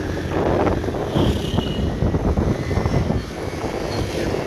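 Street traffic and engine noise heard from a moving vehicle on a busy road: a steady low engine drone under a dense rush of road and wind noise.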